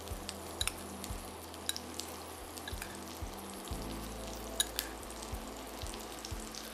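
Onion slices frying in butter in a pan, a steady light sizzle. A metal spoon clicks and scrapes a few times as quinoa is spooned into a stainless steel saucepan.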